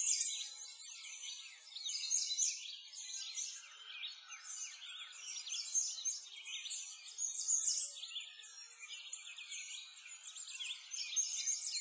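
Dense chorus of songbirds, many short chirps and trills overlapping without a break, all high-pitched with nothing low underneath.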